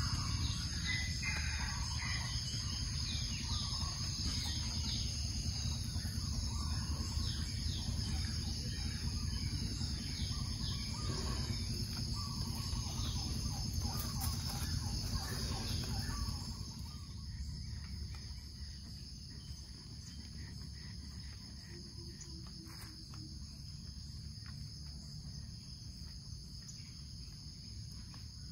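Forest ambience: insects keep up a steady high drone while birds chirp, with a low background rumble. About two-thirds of the way through, the rumble and the bird calls fade and the scene goes quieter, leaving mostly the insect drone.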